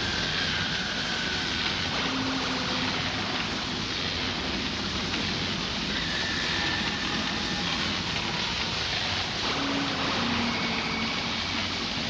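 Cartoon sound effect of crackling electrical energy: a steady, dense hiss and crackle over a low rumble, with a few short faint electronic tones.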